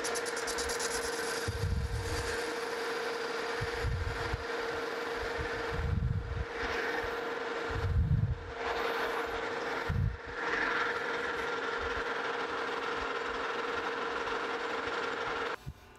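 Metal lathe running, with a tool cutting as it faces the hub of a cast iron wheel: a steady whine over a dry, hissing cut, with low thumps roughly every two seconds. The sound stops abruptly near the end.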